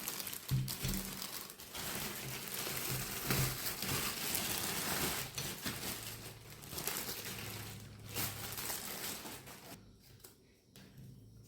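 Packaging crinkling and rustling as it is handled, with scattered clicks, for about ten seconds before it dies down near the end.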